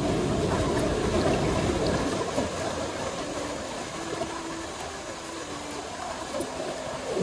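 Water running steadily, with a gurgling, trickling flow.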